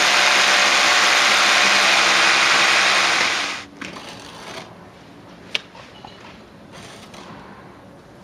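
Electric drill running steadily at full speed, boring with a long bit through a PVC window frame into the wall for a frame fixing, stopping abruptly about three and a half seconds in. After that come faint scraping and a sharp click as mortar is worked into the gap beside the frame with a trowel.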